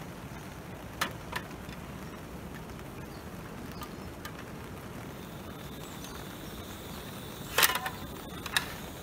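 Small cartridge gas camp stove being lit: a couple of light metal clicks early on as the pot settles on the burner, then a loud burst of sharp clicks about three-quarters through and one more click just before the end, from the piezo igniter. A steady outdoor background runs under it.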